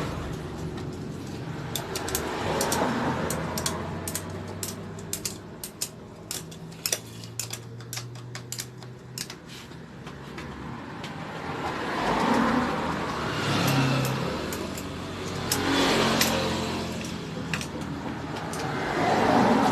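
Light metallic clicks and taps of hand tools on a motorcycle engine as a cover is refitted after a valve adjustment, several a second through the first half. Later, motor vehicles pass by one after another, each rising and fading.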